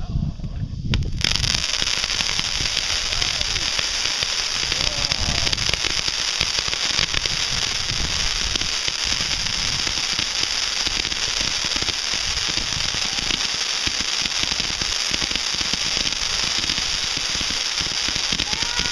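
Fireworks crackling: a dense, unbroken crackle of many small firecracker-type pops. It starts suddenly about a second in and keeps up at an even level.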